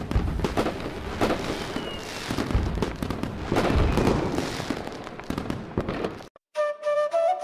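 Fireworks: a dense run of bangs and crackles with a whistle gliding down in pitch about two seconds in. It cuts off suddenly about six seconds in, and flute music starts just before the end.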